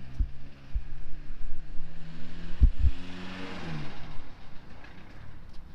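A passing car: its engine note holds steady, then drops in pitch as it goes by about three and a half seconds in, with the sound of the car swelling and fading. A few dull low knocks come early and near the middle.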